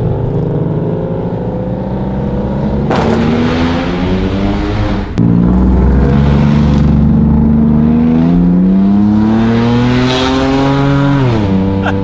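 Straight-piped car engine accelerating hard through the gears. The revs climb, drop at an upshift about five seconds in, climb again, then drop at a second upshift near the end.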